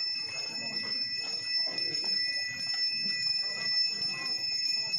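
A bell ringing steadily at a high, unchanging pitch, over a low murmur of voices.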